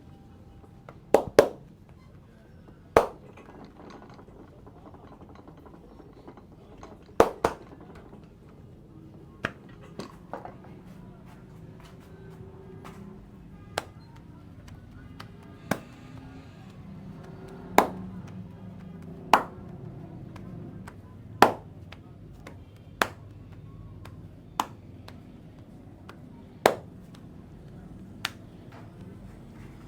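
Hand strikes of a head massage: about sixteen sharp slaps or claps at an uneven pace, roughly one every second or two, over a low steady background.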